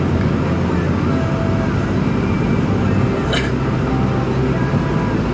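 Steady road and engine rumble heard from inside a moving car's cabin, with a brief sharp click about three and a half seconds in.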